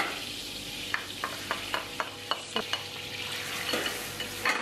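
Chopped onions sizzling in a stainless steel saucepan while a wooden spoon stirs them. Between about one and three seconds in, the spoon knocks against the pan about eight times in quick succession.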